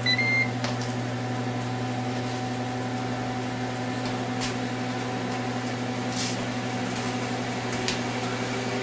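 Ninja Foodi running in air-crisp mode with the lid closed: a steady fan hum with a low drone and a few faint steady tones above it. A brief high tone sounds near the start.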